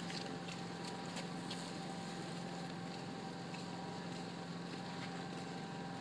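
Steady low background noise with a faint steady hum, and a few soft clicks in the first second or so.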